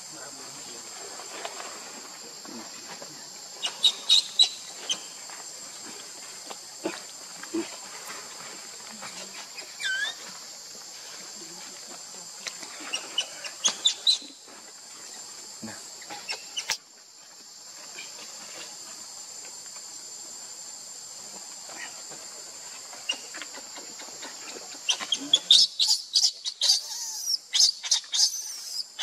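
Steady high-pitched drone of an insect chorus, with bursts of crackling dry leaves about four seconds in, around fourteen seconds, and thickly in the last few seconds as the monkeys move on the leaf litter. A short squeak comes about ten seconds in.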